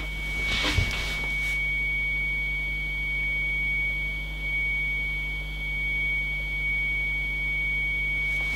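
A steady single-pitch audio test tone of about 2.1 kHz from a tone generator, fed into the IC201 transceiver's FM transmitter and heard through a monitoring receiver; it shows the FM transmit path is working. A few light clicks sound about a second in.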